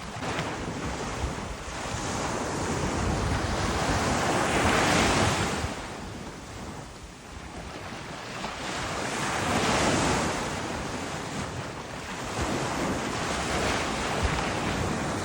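Wind and waves: a steady rush of wind and water that swells louder twice, about five seconds in and again about ten seconds in, with wind buffeting the microphone.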